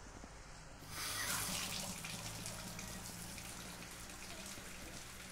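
Water gushing and splashing out of a rain downspout. It starts suddenly about a second in and slowly tapers off, sitting way too prominent over a steady bed of light rain and café ambience.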